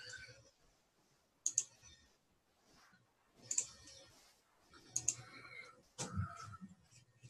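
A few sharp, scattered clicks and taps, about four over several seconds, with faint background noise between them.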